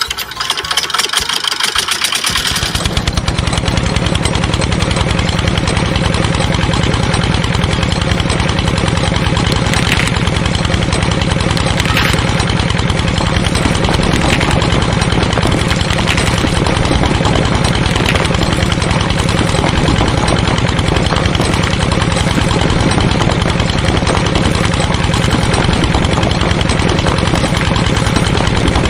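A small engine starts about two seconds in and then runs steadily at idle with a fast, even pulse. Faint clicks come about every two seconds partway through.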